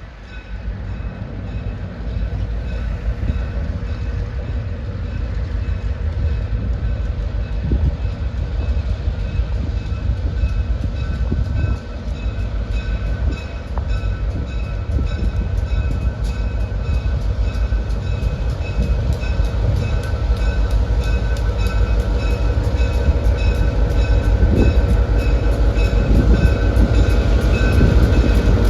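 Rail vehicle running: a steady low rumble with a rapid, even clatter and a faint high steady whine, growing gradually louder.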